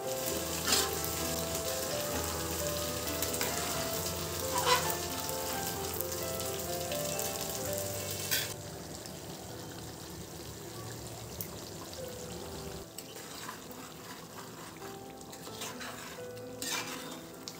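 Thick chicken curry gravy sizzling and bubbling in an aluminium pot, with a few sharp knocks of pot or lid. The sizzle quiets about halfway through, and near the end a spoon stirs and knocks in the pot.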